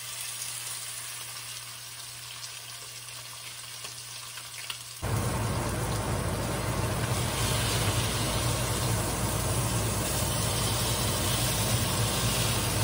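A butter-coated, blackening-seasoned triple tail fillet sizzling as it sears in a very hot skillet. About five seconds in the sizzle jumps suddenly louder and fuller, then holds steady.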